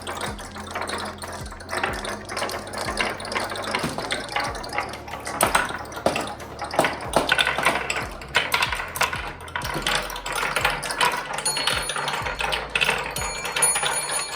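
A pack of marbles rolling and clattering down a marble-run track: a dense, uneven stream of small clicks and knocks.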